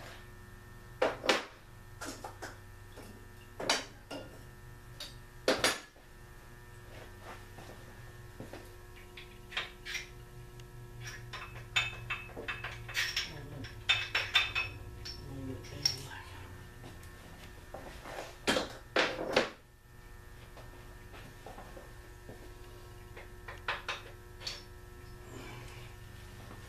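Metal-on-metal clanks and clinks of hand tools working on a 1956 Packard engine block on an engine stand. Sharp knocks come scattered, with busier runs near the middle, over a steady electrical hum.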